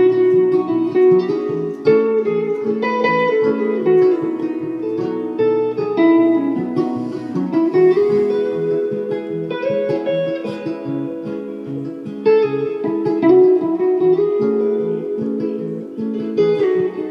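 Instrumental break in a live acoustic folk song: acoustic guitar picking and strumming a steady melodic passage with no singing.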